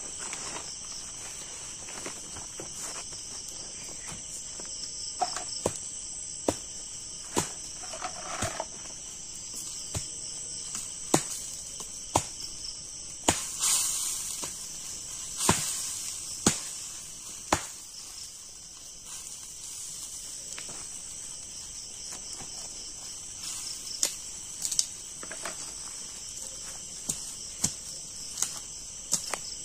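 Steady high-pitched chorus of night insects, with scattered sharp clicks and knocks throughout and a couple of brief noisy bursts around the middle.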